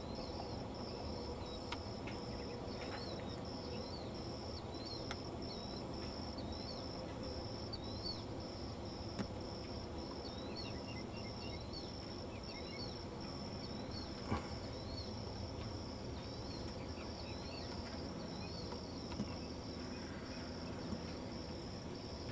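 Crickets chirping in an even pulse a few times a second over a steady low hiss, with small birds chirping now and then. A few soft knocks stand out, the plainest about two-thirds of the way through.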